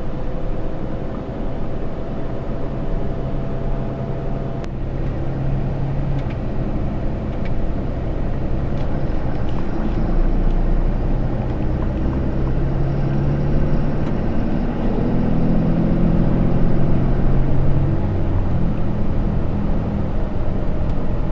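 A Ram 3500's 6.7-litre Cummins inline-six turbo diesel running as the truck drives, with road noise. The engine note rises and falls a few times as the speed changes.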